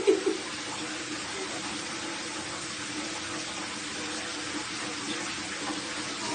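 Water running steadily into a bathtub from the tap, an even rushing hiss. A brief call or voice sounds right at the start.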